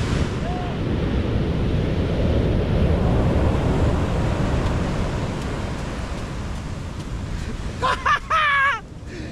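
Surf breaking and washing up a sandy beach, a steady rush of water with wind buffeting the microphone. Near the end a man gives a short, excited shout in two bursts.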